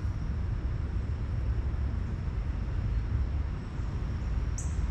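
Steady low outdoor rumble of background noise, with a faint steady high-pitched tone over it and a brief high chirp near the end.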